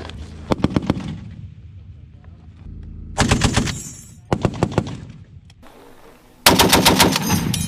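M2 .50 caliber heavy machine gun firing four short bursts of rapid, evenly spaced shots; the last burst, starting about six and a half seconds in, is the longest and loudest.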